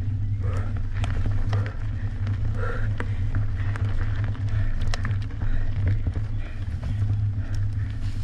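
Merida One-Sixty enduro mountain bike riding down a trail stage: a steady low rumble with frequent sharp clicks and rattles as the bike goes over rough ground.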